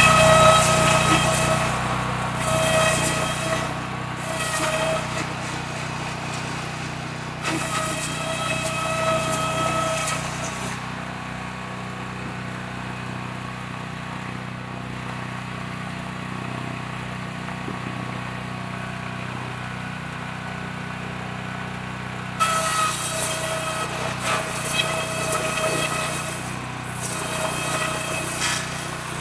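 Small gasoline engine running steadily, driving the saw blades of a bamboo-halving machine. A guadua bamboo pole is cut lengthwise twice, giving a whining, rasping cutting noise for about the first ten seconds and again from about two-thirds of the way in. In between, only the engine runs.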